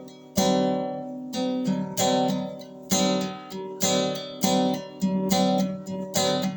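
Acoustic guitar strumming chords, a new strum about twice a second, each left to ring between strokes.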